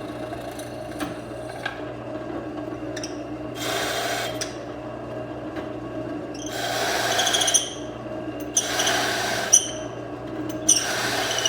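Drill press motor running steadily while the bit cuts into a piece of wood in four bursts about a second long, as it is fed down and backed off again (peck drilling), with a few sharp clicks.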